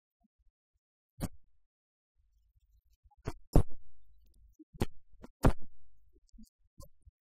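A handful of sharp knocks or taps, the loudest about three and a half and five and a half seconds in, with faint low rumbling between them.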